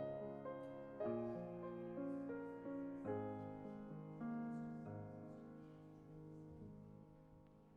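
Piano playing slow, quiet chords in a hymn-like style, each chord struck and left to decay; a last chord rings out and fades away over the final few seconds.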